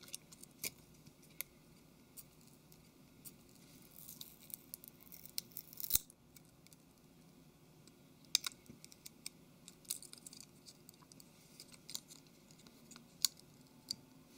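Faint scattered clicks and scratches of a plastic pry tool working under the Samsung Galaxy Note 3's small USB circuit board and peeling it off its adhesive, with a short crackly stretch ending in a sharp click about six seconds in.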